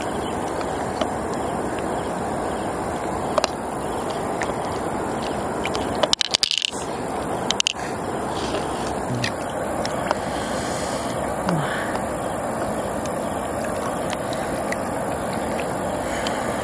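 Steady rushing background noise with scattered sharp clicks: a quick cluster about six seconds in and another a second later. The clicks come from pink pearls being handled and knocked together in the open river mussel shell.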